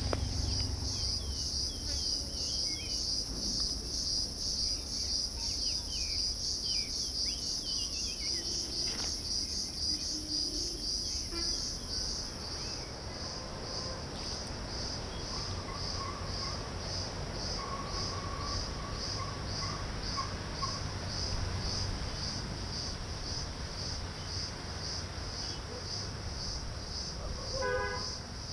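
Chorus of insects, such as cicadas or crickets, making a steady, high, pulsing drone, with a few faint bird chirps in the first half.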